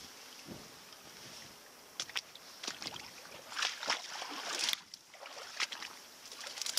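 Tall grass swishing and rustling as it brushes past the camera, in irregular swishes that are loudest around four seconds in.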